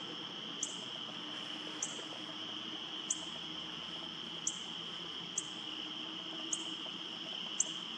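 Steady high-pitched dusk chorus of calling insects. A short, sharp, higher chirp repeats about once a second over it.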